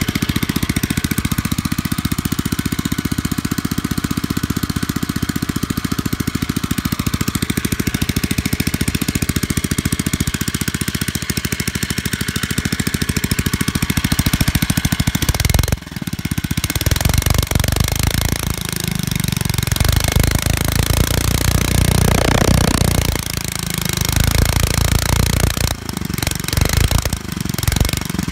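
Hensim 97cc 2.8 hp single-cylinder engine running, steady for about fifteen seconds. Then it turns louder and uneven, with several brief dips. The owner says it still does not run perfectly even after its carburetor's emulsion tube was bored out.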